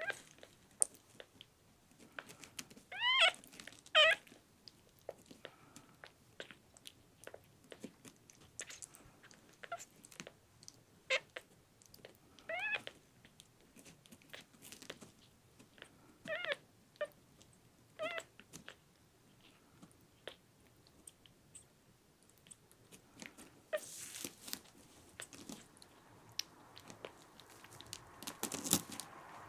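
Very young kitten suckling at a nursing bottle: soft wet clicking and smacking sounds throughout, with five short high mews, the loudest two about three and four seconds in and three more partway through. A brief rustle near the end.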